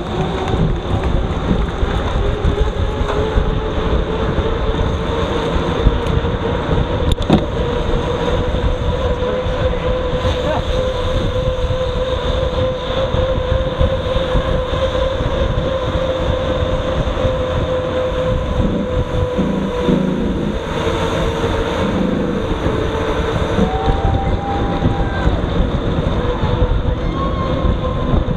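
Wind rushing over the microphone of a camera on a moving mountain-bike tandem, with a steady rolling hum that drifts slightly up and down in pitch.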